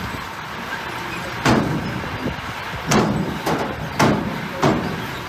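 Heavy earthmoving machinery running steadily, with four sharp, ringing bangs like metal striking metal. The first comes about a second and a half in, and the rest follow about a second apart.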